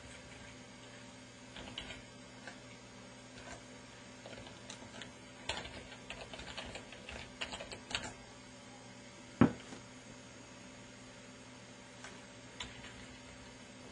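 Computer keyboard keys clicking in irregular runs, busiest in the middle, with a single sharp thump about nine and a half seconds in.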